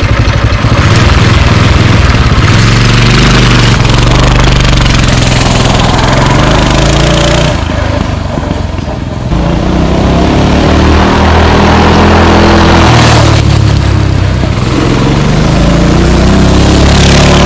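Coleman CT200U mini bike's small single-cylinder four-stroke engine running hard at full throttle on a top-speed run. The engine note dips briefly about eight seconds in, then climbs again and holds.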